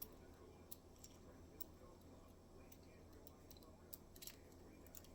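Faint, irregular clicks of a Chinese disc-detainer lock's discs being turned one by one with a disc-detainer pick under light tension, over a steady low hum.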